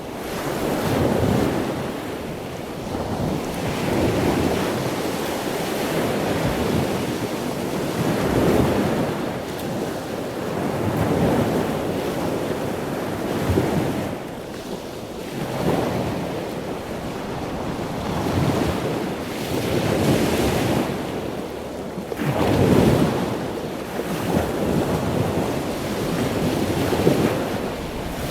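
Ocean surf: waves breaking and washing in, the rush of water swelling and fading every two to four seconds.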